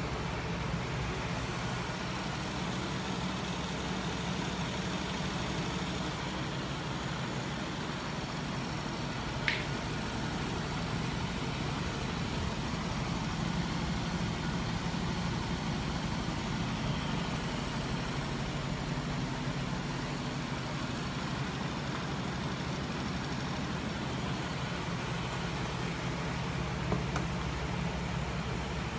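Home-built flywheel machine driven by an electric motor, running steadily with a low hum. One sharp click about nine and a half seconds in, and a faint tick near the end.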